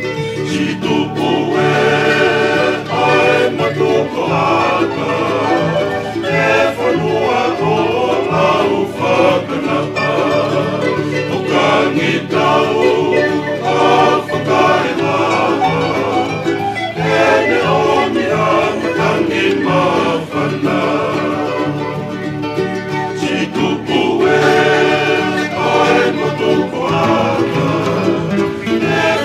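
A choir singing a Tongan song, accompanied by strummed string instruments.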